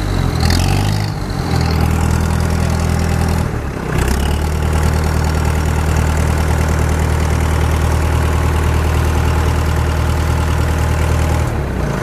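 Leyland 344 tractor's four-cylinder diesel engine running just after a cold start with the cold start button engaged. It picks up and settles in the first second or so, dips briefly about three and a half seconds in, then idles steadily.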